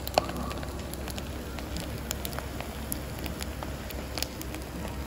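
Hot clay-pot rice with grilled eel crackling and sizzling in its freshly served donabe: irregular small crackles, with one sharper pop just after the start.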